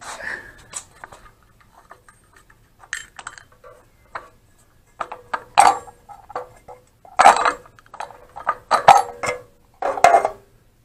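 Clinks and knocks of metal parts being handled as the air cleaner cover comes off the generator's small engine and the mesh filter element is lifted out. It is an irregular string of sharp clatters, louder and busier in the second half, some with a short metallic ring.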